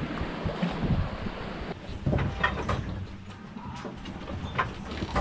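Wind and sea noise aboard a small sailboat pitching in rough seas. After about a second and a half the roar gives way to scattered knocks and rattles over a low rumble.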